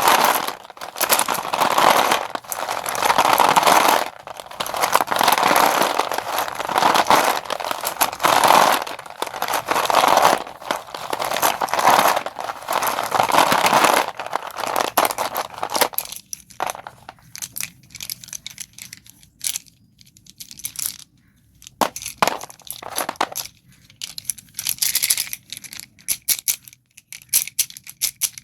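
Sticks of Doms white school chalk being crushed and crumbled. For about the first sixteen seconds there are dense crunching surges roughly every second or so. After that the sound thins to sparser sharp cracks and crackles of crumbs, with quick small clicks near the end.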